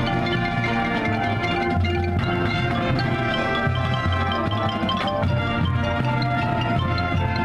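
Marching band playing sustained brass chords over a low bass line, with chimes and marimba from the front percussion ensemble.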